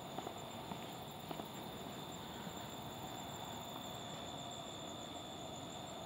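Steady high-pitched chorus of night insects such as crickets, with a few faint clicks in the first second and a half.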